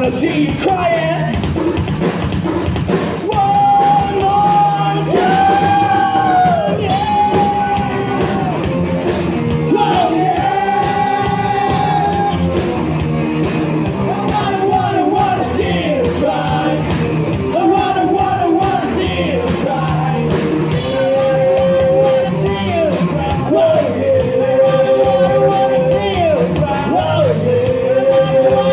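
Live rock band playing electric guitar, bass guitar and drum kit, with a singer holding long, wavering notes over the band.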